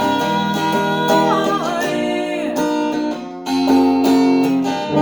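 Strummed acoustic guitar with a singing voice holding long notes that glide downward. The strumming drops away briefly a little past three seconds in, then comes back.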